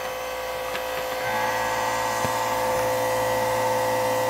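Electric fuel pump on a turbocharged Suzuki GSX-R drag bike running steadily with a whine, its note growing fuller and a little louder about a second in. It is circulating fuel through the system to build pressure before the first start.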